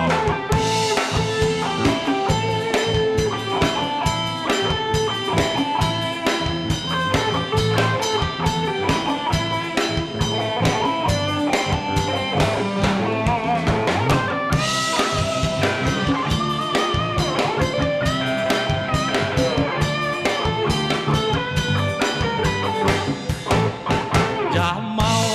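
Live rock band playing an instrumental passage with no singing: electric guitar over drum kit and bass guitar, with a steady beat.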